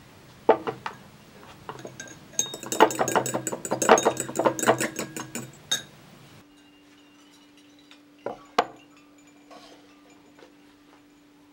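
Fork whisking an oil-and-lemon dressing in a glass bowl, the tines clinking rapidly against the glass for a few seconds. Later come two short knocks.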